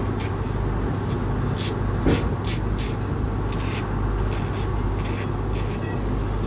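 Safety razor scraping through lathered stubble in a series of short strokes, over a steady low rumble of wind outside.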